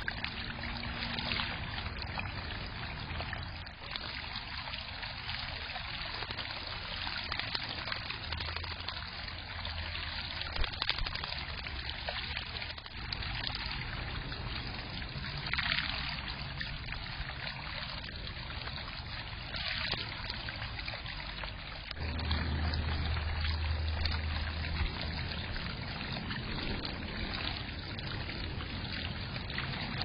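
Small backyard fountain bubbler trickling and splashing steadily into a shallow pebble-lined pool, with brief louder splashes from a bird bathing about halfway through. A low rumble joins in about two-thirds of the way through.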